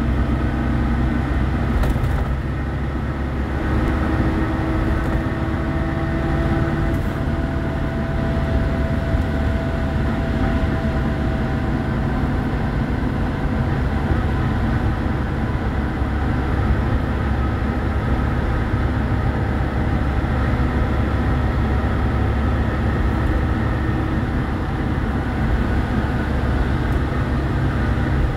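Steady driving noise heard from inside a car's cabin at highway speed: a constant low engine and road hum with tyre noise from the wet, slushy road surface.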